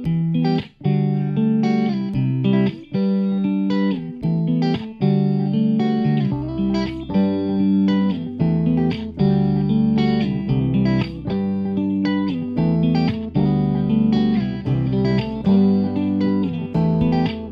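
Instrumental background music with plucked notes struck in a steady rhythm; a low bass part comes in about six seconds in.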